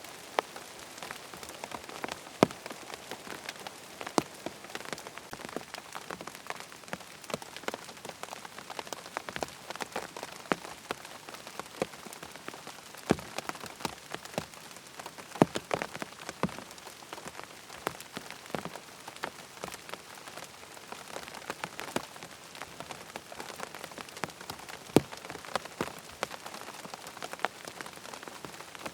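Steady rain falling on a tent, a constant patter with many sharp individual drop hits, some louder drips standing out at irregular moments.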